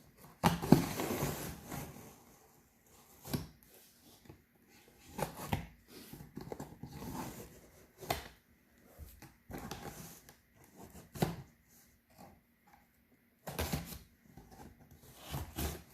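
Cardboard shipping box being opened by hand: tape and flaps scraping and rustling in a string of irregular bursts, the loudest about a second in.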